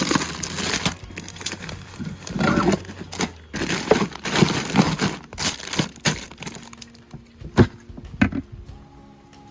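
Irregular knocks, cracks and crinkling rustles of objects being handled, with one sharper knock standing out near the end.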